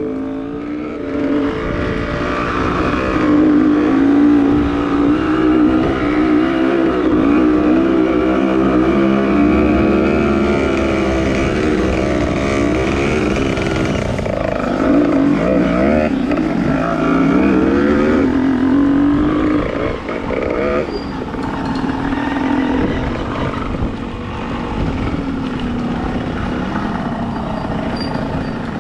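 Dirt bike engine running under load on a rough track, its revs rising and falling constantly, with the widest swings a little past halfway.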